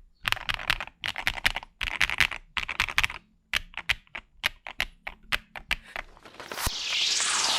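Fast typing on an Akko ACR Top 75 acrylic top-mount mechanical keyboard: rapid runs of key clacks with short pauses between them. Near the end a whooshing sweep that rises and falls takes over.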